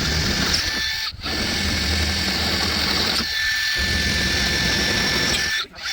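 Electric drill running under load, boring through the Jeep's sheet-metal hood to enlarge a bolt hole to 9/16 inch. It runs in three stretches, with brief stops about a second in and near the end.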